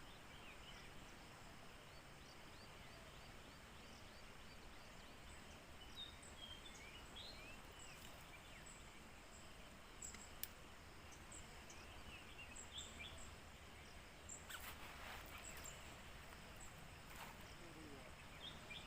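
Faint outdoor ambience with birds chirping, short scattered calls throughout. A sharp click about ten seconds in, and brief noises around fifteen and seventeen seconds.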